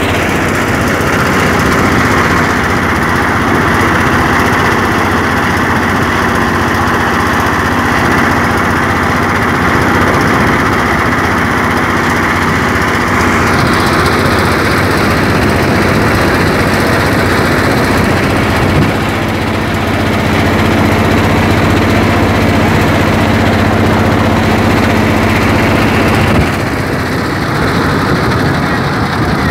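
An engine running steadily close by: a continuous low hum with a rough, rattly edge. Its tone changes slightly about 13 seconds in and again near the end, where the low hum drops away.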